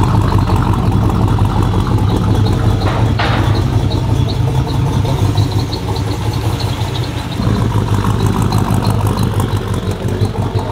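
An OBS GM pickup's cammed 5.7-litre V8 idling through a Corsa trial muffler and side-exit pipe: a steady, even low rumble, not too loud at idle.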